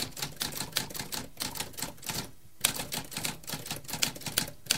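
Typewriter keys clacking in a fast run, about six strokes a second, with a short pause about halfway through.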